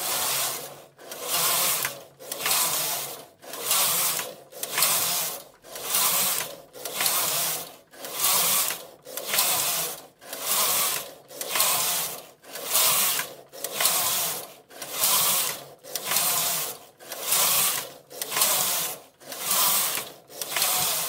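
Knit carriage of a Silver Reed punchcard knitting machine pushed back and forth across the needle bed, knitting plain stockinette rows. Each pass is a rasping swish of the carriage running over the latch needles, about one pass a second with a brief pause at each turn.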